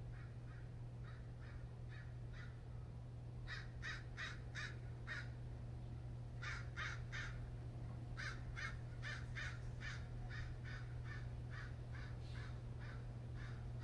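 Crows cawing in runs of several quick caws, at about three caws a second, over a steady low hum.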